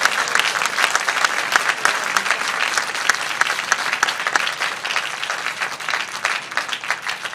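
Spectators at an indoor tennis match applauding, a dense patter of many hands clapping that eases slightly toward the end.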